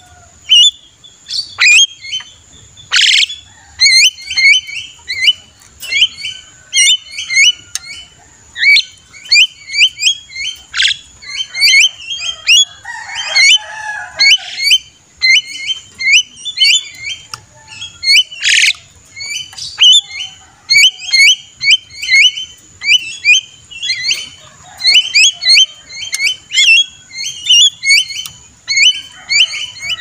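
Javan myna (jalak kebo) calling without pause: rapid, repeated short chattering notes, broken by a few loud harsh screeches, about three, eleven and eighteen seconds in. A thin, steady high-pitched tone runs underneath.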